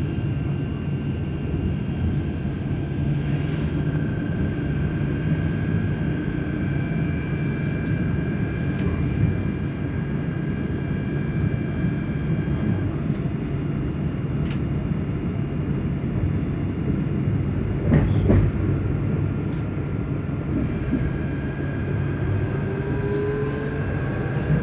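Tram running along the line, heard from inside the car: a steady low rumble of wheels on rail with thin steady whines above it. There is a brief clatter about three quarters of the way through, and short rising whines near the end.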